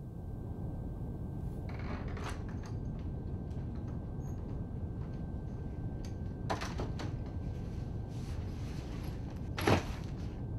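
A door being opened: clicks of the knob and latch with some rustling, over a steady low hiss of room tone. A single louder thud near the end, as a backpack is set down on a wooden chair.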